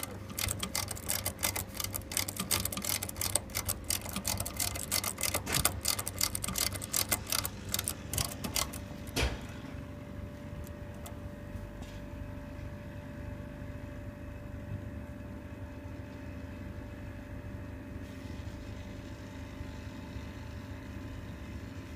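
Refrigeration condensing unit's Tecumseh compressor running with a steady hum while not pumping, a mechanical failure in the owner's view. For about the first nine seconds rapid, irregular clicking and rattling runs over the hum and ends in one sharp click; after that only the steady hum remains.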